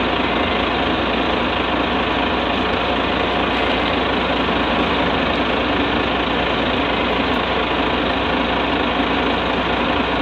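Engine idling steadily, an even drone that does not change.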